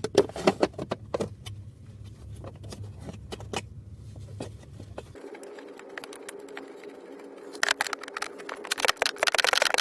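Small clicks and knocks of parts being handled, then a socket ratchet clicking rapidly in two runs near the end, as the 5/16 bolt of the new blower motor resistor is driven in.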